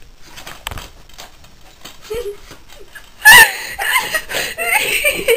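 Light clicks of plastic DVD cases being handled, then loud laughter starting about three seconds in.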